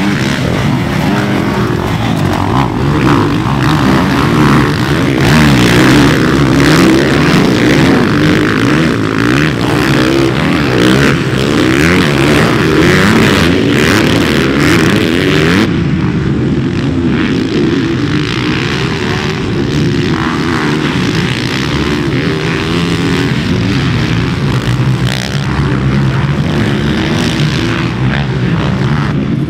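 Motocross dirt bike engines running hard on a track, the pitch rising and falling rapidly with throttle and gear changes.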